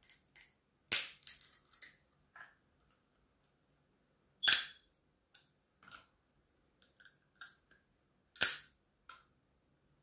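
Cooked king crab shell cracking as it is broken apart by hand: three loud sharp cracks about four seconds apart, with smaller snaps between.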